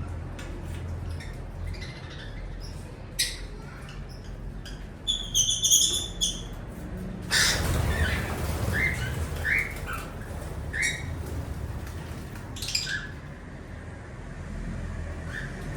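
Pet lovebirds and a cockatiel chirping and squawking in short, scattered calls, with a quick flurry of high chirps about five seconds in and a brief noisy burst just after.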